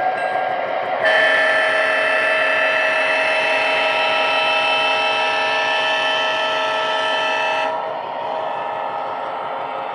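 Proto-Sound 3.0 sound system of an MTH O-gauge Bessemer & Lake Erie F7 diesel model playing a long multi-note air horn blast through its speaker. The horn starts abruptly about a second in, holds steady for about six and a half seconds, then cuts off, over the steady rumble of the running train.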